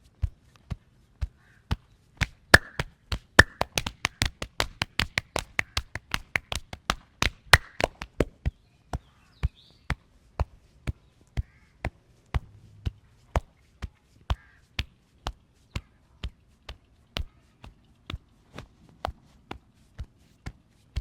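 Rhythmic percussive hand strikes of a fast massage: open-hand slaps and chops on a person's body. They come about two a second, quicken into a denser, louder run between about 2.5 and 8 seconds, then settle back to about two a second.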